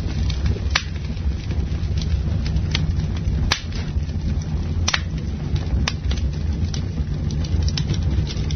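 Campfire burning: wood crackling with sharp pops about once a second and smaller snaps between, over a steady low rumble.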